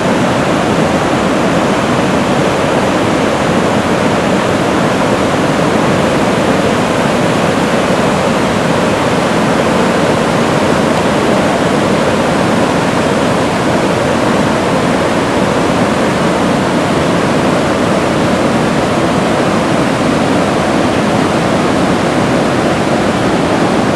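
Whitewater rapids: river water pouring over ledges and boulders in a loud, steady rush.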